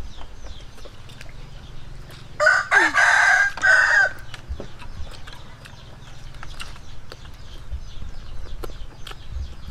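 A rooster crows once, about two and a half seconds in, a drawn-out call lasting about a second and a half. Soft clicks and smacks from people eating run underneath.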